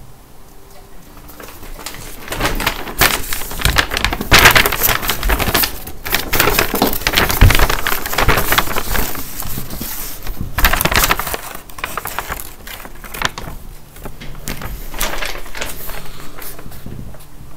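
A large sheet of paper crinkling and rustling as it is handled and bent close to the microphone. It is quiet at first, loud and busy through the middle, and softer near the end.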